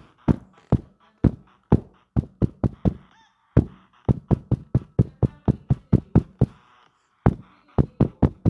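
Sharp knocking, two to four knocks a second with short breaks about three and seven seconds in, over fainter honking beeps from a musical gadget.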